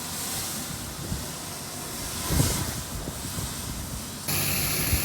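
Steady hissing noise with a few low thuds. About four seconds in it cuts abruptly to a steady machine hum with a high whine.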